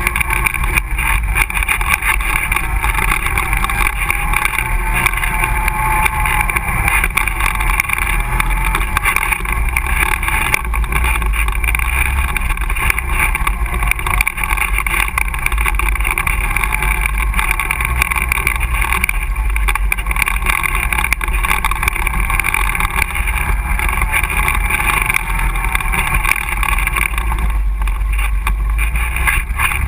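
ATV engine running steadily while riding along a dirt trail.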